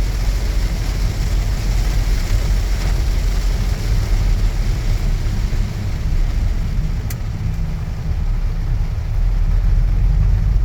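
Car cabin noise while driving: a steady low rumble of engine and road with a hiss over it, and a single short click about seven seconds in.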